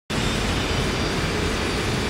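Large wooden crib fire burning hard: a steady, loud rumbling rush of flame.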